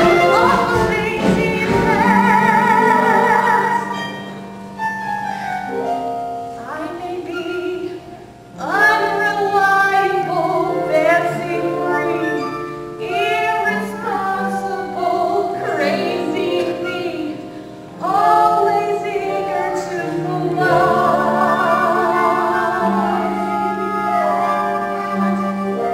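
A woman sings a musical-theatre number in phrases with vibrato, over sustained instrumental accompaniment.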